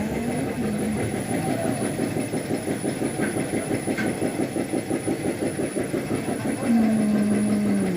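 Caterpillar 320D2 excavator's diesel engine turning over with an even, rhythmic beat of about six pulses a second. A louder steady tone comes in near the end.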